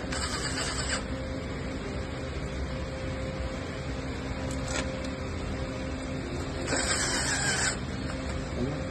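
Cordless drill with a long screwdriver bit driving screws into a metal rail, in two short runs of about a second each, at the start and again about seven seconds in, over a steady background hum.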